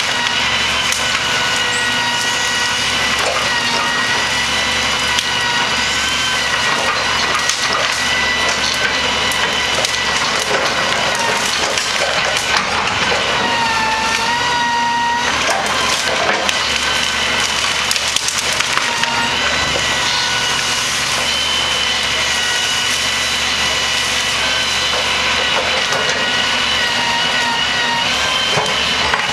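Knuckleboom grapple loader working a pile of brush: constant crackling and snapping of branches crushed in the grapple, over a steady high hydraulic whine that dips in pitch for a couple of seconds about halfway through.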